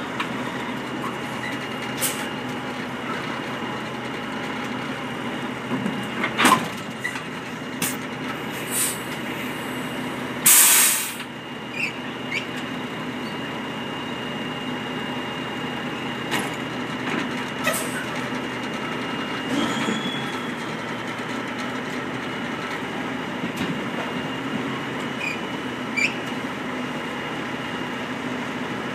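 Semi-truck tractor's diesel engine idling steadily with a held whine. About ten seconds in comes one short, loud burst of air hiss, typical of the truck's air brake system venting, and a few sharp clicks and knocks come and go.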